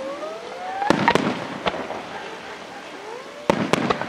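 Aerial fireworks bursting: sharp bangs in two clusters, about a second in and again about three and a half seconds in, with a rising whistle between them.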